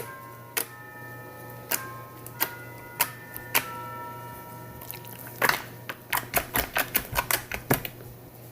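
Pink homemade slime being squeezed and worked by hand, giving sharp clicks and pops: a few spaced apart at first, then a quick run of them from about five seconds in.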